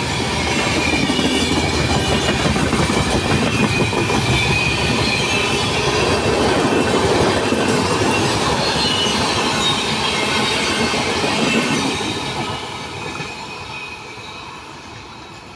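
Express train accelerating away along the main line, its coaches rolling past on the rails with thin, high wheel squeals over the running noise. The noise stays steady, then fades away over the last few seconds as the train draws off.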